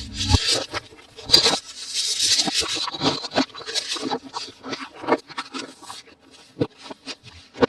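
Toy packaging and toys being handled during unboxing: a close, continuous run of rustles, scrapes and light taps.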